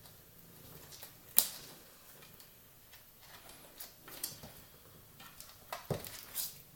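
Cat batting and biting at a plastic cable tie: scattered light clicks and taps, the sharpest about a second and a half in, with a quick cluster of them near the end.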